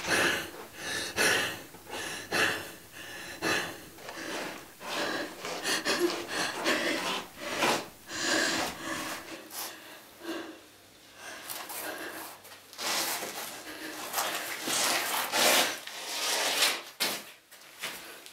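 A young woman breathing hard in irregular gasps, with rubbing and scuffing as her body and hands move against a tiled floor and wall.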